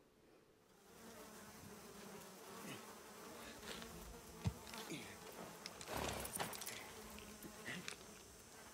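Flies buzzing around a dead horse, faint and steady, starting about a second in. There is a sharp knock about four and a half seconds in and a brief louder noise about six seconds in.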